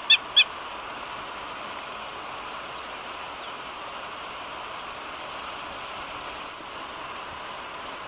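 Two sharp, high-pitched animal calls in quick succession at the very start, ending a rapid series, then a steady hiss of outdoor bush ambience with a few faint high chirps.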